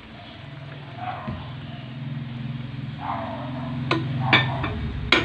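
A wooden spatula knocks against a stainless steel pan three times in the last half of the clip, sharp knocks about half a second apart. Under the knocks, a low steady hum sets in about a second in.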